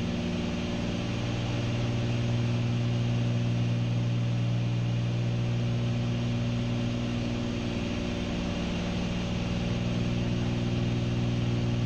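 Steady cabin drone of a Cessna 310Q's two six-cylinder piston engines and propellers in a climb: a constant low hum with evenly spaced tones above it.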